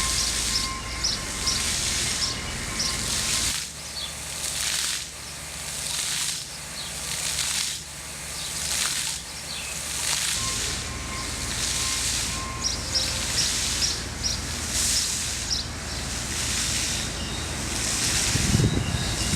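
Outdoor ambience: a high hiss that swells and fades about once a second, with short high chirps at times.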